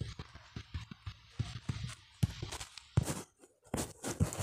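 A run of soft, irregular taps and knocks, several a second, from fingertip taps on a phone's touchscreen while drawing; the sound drops out completely for a moment about three and a half seconds in.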